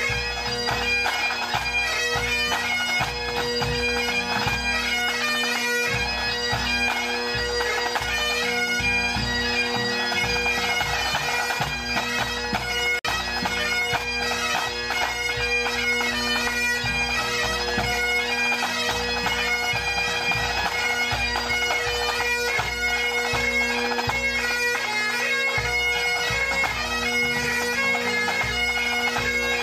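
A pipe band playing: massed Great Highland bagpipes sound a steady drone under the chanter melody, while snare, tenor and bass drums beat along. The bass drum gives a regular low beat.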